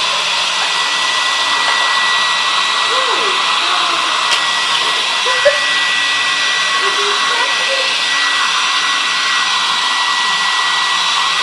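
Handheld blow dryer running steadily: a rush of air with a steady high whine.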